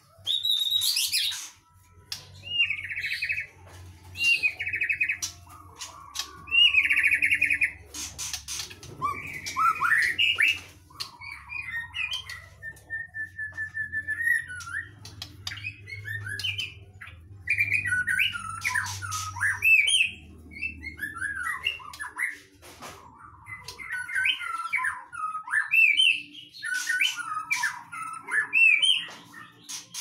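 White-rumped shama (murai batu) singing: a varied run of short whistled phrases and quick glides, mixed with harsh buzzy notes and, about thirteen seconds in, a steady trill.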